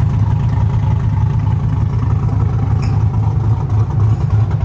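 Chevrolet Silverado pickup's engine idling: a steady, loud low rumble with a slight pulse.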